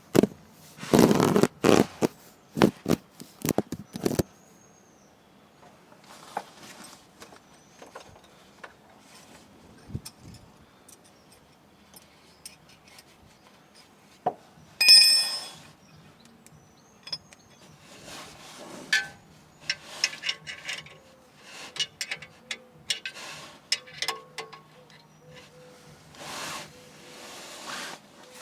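Metal tools and parts being handled: a run of sharp knocks in the first few seconds, then scattered clicks and scrapes. One loud, bright ringing clink comes about fifteen seconds in.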